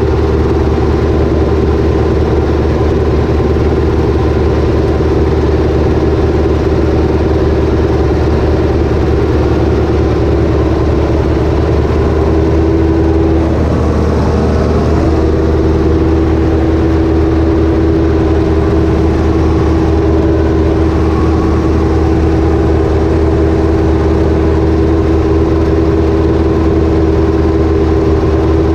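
Ursus tractor's diesel engine running steadily under load, heard from inside the cab while it tows a second tractor and potato harvester. The pitch shifts briefly about halfway through.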